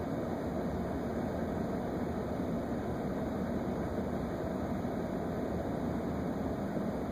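Steady low rumbling noise inside the cab of a parked emergency vehicle with its engine idling, unchanging throughout.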